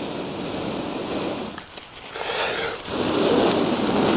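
Long breaths blown into a smouldering tinder nest of wool and wasp-nest paper around a glowing char cloth, coaxing it into flame. There are three blows with short pauses between them, the last one the strongest.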